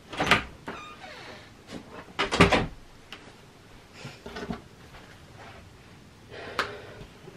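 A few short knocks and clunks, the loudest a quick cluster of three or four clunks about two seconds in, with smaller knocks near the start and later.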